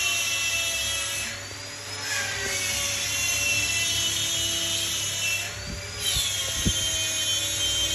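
High-speed rotary carving tool whining as it cuts wood, its pitch sagging and climbing back twice as the bit bites in and is eased off.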